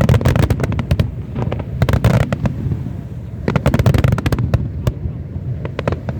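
Aerial fireworks going off in rapid volleys: clusters of sharp bangs and crackles over a continuous low rumble, coming in several waves with brief lulls between them.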